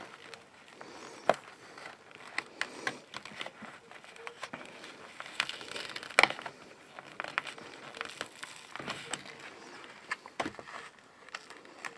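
Hangers being poked into the cardboard frame of a Filtrete pleated furnace filter: irregular rustling and crinkling of the filter with scattered sharp clicks, the loudest about a second in and again about six seconds in.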